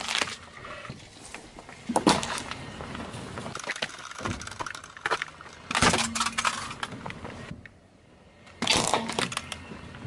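Car tyre rolling over and crushing plastic toothpick containers on asphalt: sharp cracking and crunching of plastic and snapping wooden toothpicks in three bursts, about two seconds in, around six seconds and around nine seconds, with the gritty rasp of the tyre on the ground between them.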